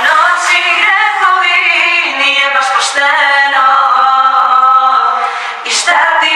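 Three women singing together in close harmony without instruments, with long held, gliding notes and a few sharp s-sounds.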